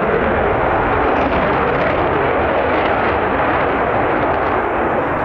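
Spanish F-18C Hornet fighter's twin jet engines heard as loud, steady jet noise during a flying display.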